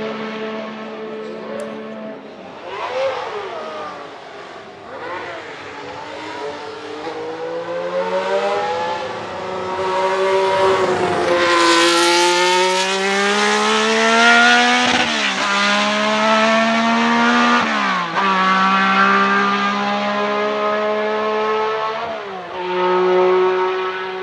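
1970 Ferrari 312B Formula One car's flat-12 engine at high revs. Its note rises as the car comes closer and is loudest as it passes near the microphone about halfway through. It then accelerates away, the pitch climbing through the gears with sharp drops at upshifts about three seconds apart.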